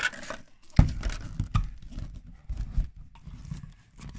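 A hard plastic LOL Surprise ball being twisted and pried open, with a loud knock about a second in as it comes apart, then scattered plastic clicks and rustling as the halves and wrapped contents are handled.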